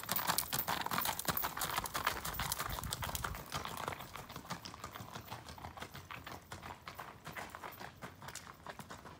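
Hoofbeats of a gaited horse under a rider, a quick run of hoof strikes that grows fainter after about four seconds as the horse moves away.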